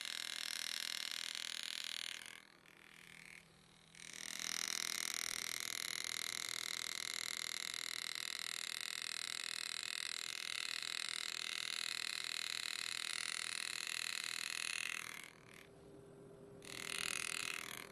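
Engraving handpiece driving a wide V-graver, buzzing steadily in long runs as it cuts the texture into the monogram letters. It stops about two seconds in, starts again, and stops and restarts briefly near the end.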